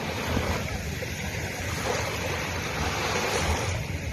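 Sea waves washing onto a beach: a steady rush of surf.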